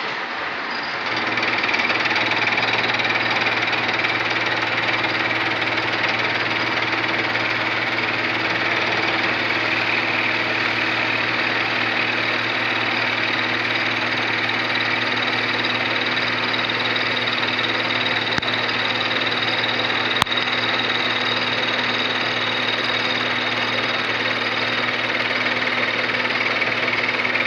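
Manual milling machine running: a steady mechanical drone of motor and gearing with a low hum and higher whines. It builds up over the first two seconds, then holds level, with one sharp click about twenty seconds in.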